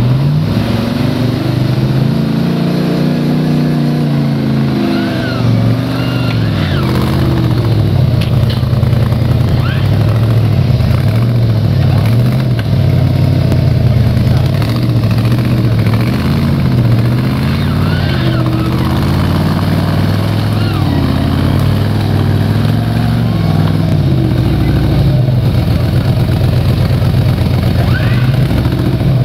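Off-road competition vehicle's engine revving hard and repeatedly through deep mud, its pitch climbing and dropping every second or two as the throttle is worked.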